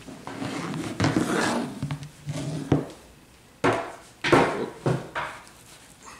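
Two large Good Guy dolls being handled and moved into place: their cloth clothes rustle and there are a few sharp knocks and bumps, two of them in the second half.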